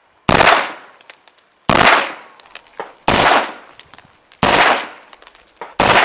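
Beretta 93R 9mm machine pistol firing in three-round burst mode: five quick bursts, roughly one every 1.4 seconds, with faint ticks between them.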